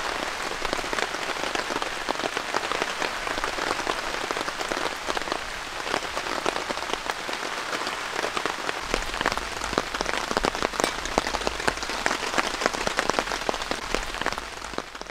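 Heavy rain falling on tent and tarp fabric: a dense, steady patter of many sharp drop hits. A low wind rumble joins about halfway through.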